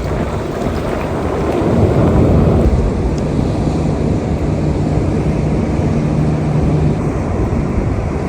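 Wind buffeting the microphone over the wash of ocean surf. A steady low hum joins in for a few seconds in the middle.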